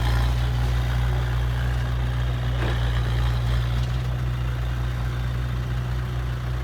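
Heavy equipment's diesel engine running steadily at low revs, a low even drone.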